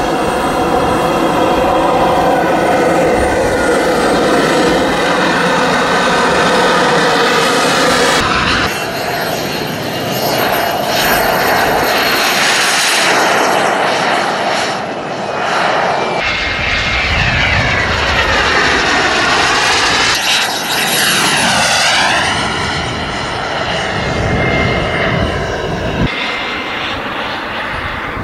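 Turbine engines of large radio-controlled model jets. First a steady, many-toned whine as one taxis, then, after a cut, jets flying past with the pitch swooping down and up as they go by.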